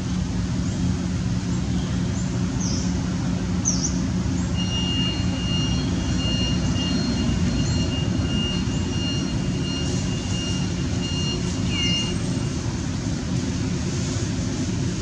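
A steady low mechanical hum runs throughout. A few short, high falling chirps sound over it, and a high, slightly pulsing whistle-like tone holds for about eight seconds in the middle.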